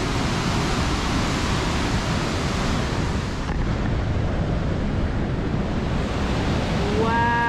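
Steady rushing of fast water: the Muddy Fork of the Cowlitz River pouring through the narrow gorge of Box Canyon. Near the end a short, high whine-like call rises and falls over it.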